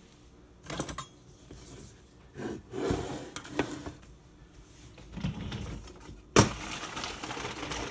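Knocks and scrapes of a plastic food-storage container being handled on a kitchen countertop, with a sharp knock about six and a half seconds in, followed by rustling.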